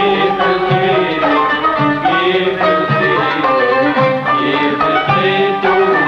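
Background music in a Middle Eastern style: melodic instruments over a regular percussion beat.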